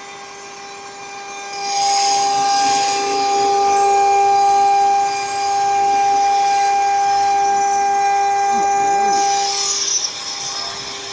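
CNC router spindle whining steadily while its bit mills through acrylic sheet and aluminum-plastic composite panel, the cut adding a loud high hiss from about two seconds in until near the end, with a brief dip midway.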